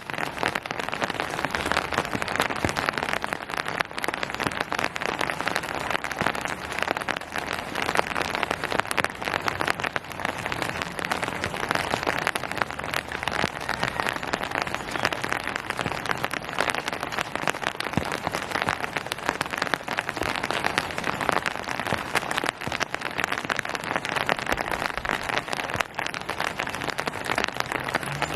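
Steady rain falling and pattering on surfaces, a dense even hiss full of small drop ticks.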